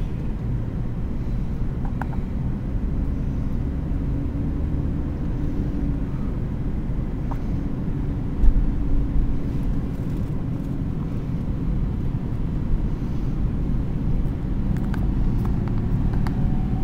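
Steady low rumble of a car driving, heard from inside, with a brief thump about eight and a half seconds in.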